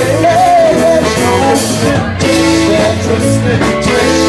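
Live band playing an upbeat soul dance tune at full volume, with a melody line bending up and down over a steady beat.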